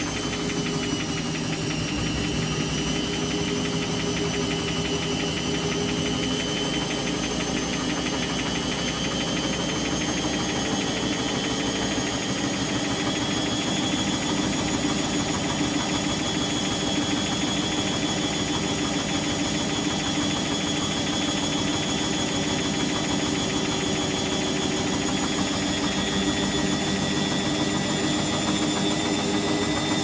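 Top-loading washing machine spinning its tub: a steady motor hum and whine whose pitch creeps slowly upward, typical of the spin cycle.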